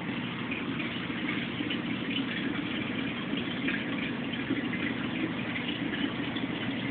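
Reef aquarium's water circulation: a steady rush and trickle of moving water.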